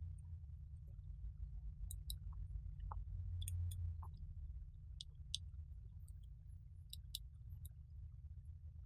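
Faint, scattered clicks and taps of small tools being handled on a repair bench, over a steady low electrical hum.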